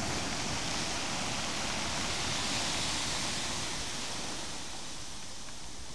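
Sea waves breaking near rocks, a steady rush of surf and spreading foam that eases a little after about four seconds.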